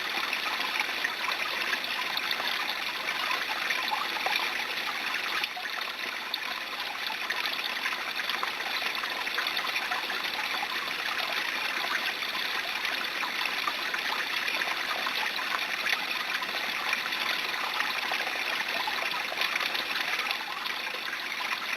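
Small brook babbling: a steady, continuous sound of shallow running water.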